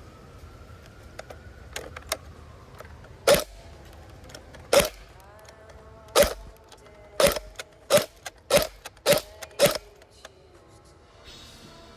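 Airsoft electric gun firing single semi-automatic shots at a plastic fan, about eight sharp cracks. They come more than a second apart at first, then quicken to about two a second near the end.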